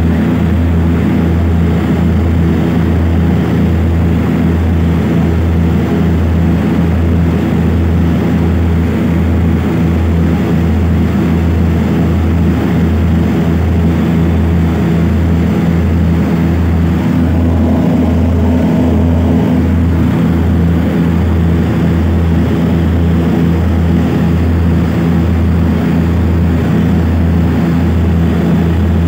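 Propeller aircraft's engines and propellers droning steadily and loudly, heard inside the passenger cabin in cruise, with a slow, even throb in the low hum.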